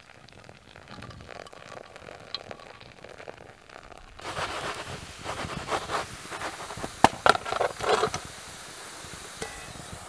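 Quiet pouring of water into a pour-over coffee filter beside a small wood-burning stove, then, about four seconds in, dough sizzling as it fries in a steel pan over the stove, with sharp metal clinks and scrapes of the pan around the middle.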